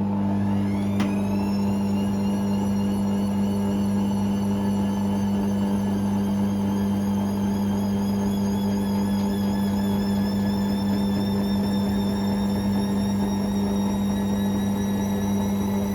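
Hoover Six Sportswear 1300 washing machine on a fast spin, its motor whine climbing steeply over the first couple of seconds and then rising slowly as the drum speeds up, over a steady hum. A single click about a second in.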